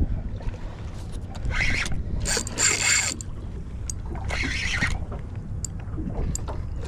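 Shimano Stella SW spinning reel cranked in three short spells, winding in line against a hooked bluefish, over a low steady rumble underneath.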